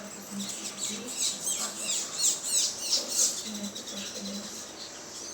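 A flock of small birds chirping: many quick, high calls that sweep downward, crowding together and loudest in the middle, then thinning out.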